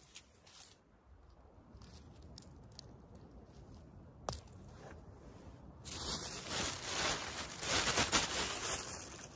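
Rustling and crunching in dry forest litter, rising about six seconds in after a quiet stretch broken by one sharp click.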